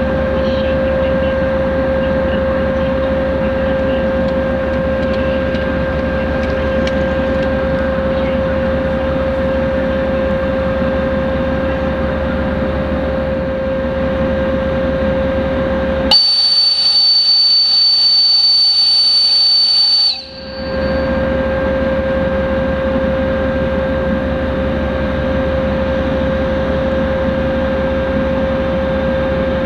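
TEP70BS diesel locomotive idling with a steady low rumble and whine. About halfway through, a shrill, high-pitched whistle sounds for about four seconds and then cuts off.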